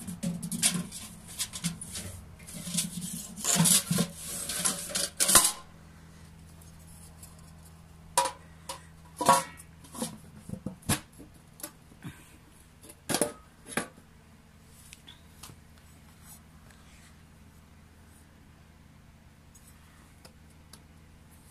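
Metal clinking and scraping, dense and busy for the first five seconds or so, then a handful of separate clinks until about thirteen seconds in, after which only a faint steady hum remains.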